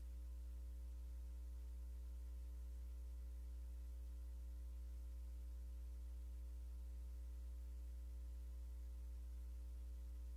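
Steady low electrical mains hum, with a few faint higher tones sitting above it.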